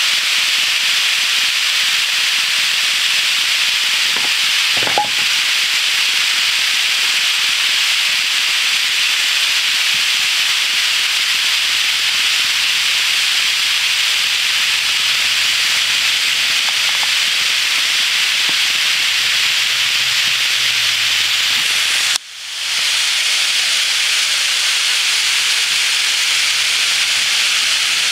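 Long HO scale freight train of Bethgon coal cars running fast around a spiral track: the metal wheels rolling on the rails make a steady, loud hiss. A small click sounds about five seconds in, and the sound briefly cuts out and fades back in a little after twenty-two seconds.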